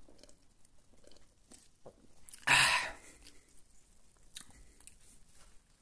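A man sipping and swallowing cola from a glass: faint wet mouth clicks and gulps, with one short, loud puff of noise about two and a half seconds in.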